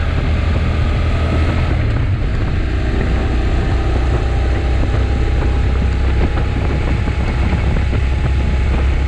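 Honda NC750X's parallel-twin engine running steadily at cruising speed, with wind noise over the microphone.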